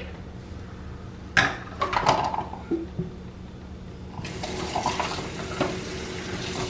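Plastic measuring cups clattering into a stainless steel sink about a second and a half in, then the kitchen tap is turned on about four seconds in and runs steadily into the sink.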